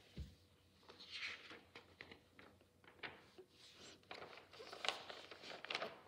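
Sheets of paper rustling and crackling as a page is turned over and handled, with a soft low bump just after the start.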